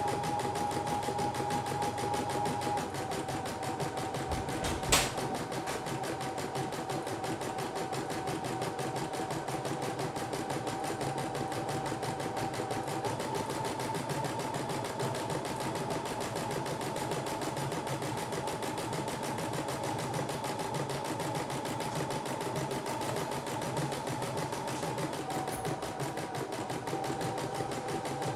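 CNY E960 embroidery machine stitching a design in its hoop: a rapid, steady needle clatter over a motor whine whose pitch shifts slightly a few times. A single sharp click about five seconds in.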